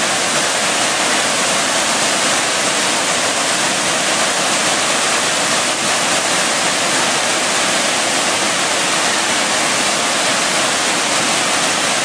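White water of a waterfall cascade rushing and splashing over boulders close by: a loud, steady, unbroken rush of water.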